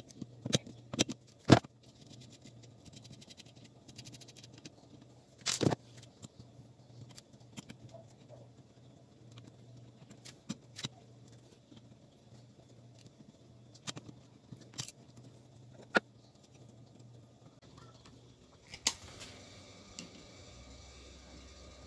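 Pliers and hand tools clicking, knocking and scraping on the metal amplifier panel of an active speaker as the control knobs are pulled off and the panel is taken apart. The knocks come singly and irregularly, the loudest about a second and a half in and again about five and a half seconds in.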